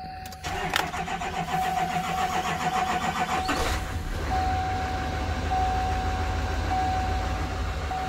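L5P Duramax 6.6-litre V8 turbodiesel cranking on the starter for about three seconds, then catching and settling into a smooth idle, heard from inside the truck's cab.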